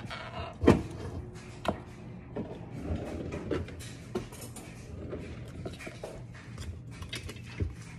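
Knocks and light clatter of kitchen things being handled on a counter, with one sharp thump a little under a second in and another a second later, then smaller taps.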